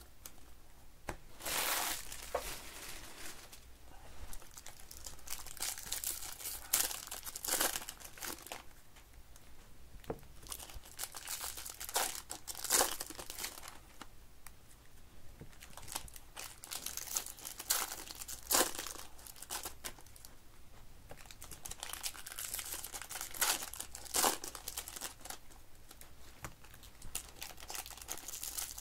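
Foil wrappers of Topps baseball card packs crinkling and being torn open by hand, in irregular bursts.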